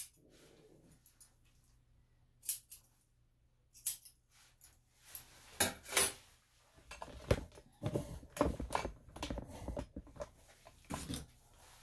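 Dog nail clippers snipping through a dog's nails, sharp clicks a second or two apart. In the second half comes a quicker run of softer knocks and rustles.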